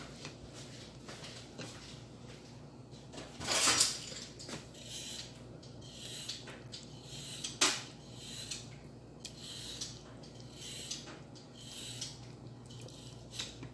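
Wooden spoon stirring a chicken stew in a stainless steel pot, with soft scrapes and knocks against the pot. There is a louder clatter about three and a half seconds in and a sharp knock about halfway through, over a steady low hum.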